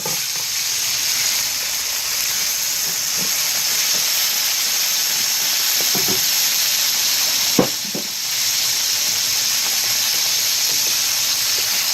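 Crayfish (rock lobster) pieces frying in hot oil in a wok: a loud, steady sizzle that starts suddenly as they go in. A couple of short knocks come past the middle.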